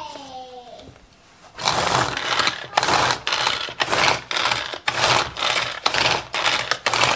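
Manual pull-cord food chopper dicing apples, its blades whirring in short repeated bursts about twice a second as the cord is pulled again and again.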